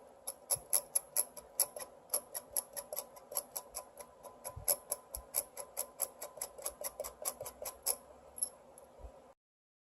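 A rapid run of small, sharp clicks, about four or five a second, that stops abruptly near the end.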